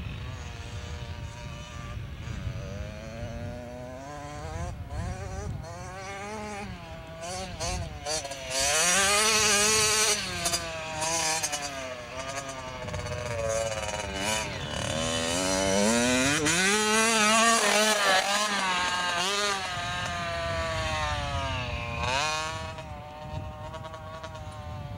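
Small youth dirt bike's engine revving up and down again and again as it is ridden around the track. It grows loudest twice as the bike passes close, under a constant low rumble.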